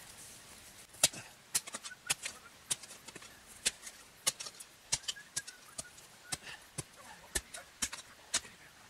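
Small spade digging earth out of a shallow pit in turf: repeated short chops and scrapes of the blade in the soil, irregular, about one or two a second.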